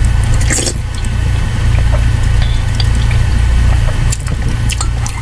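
Close mouth sounds of eating soup from a spoon: wet smacks, clicks and chewing, with a cluster about half a second in and another about four seconds in. A steady low hum runs underneath and is the loudest thing throughout.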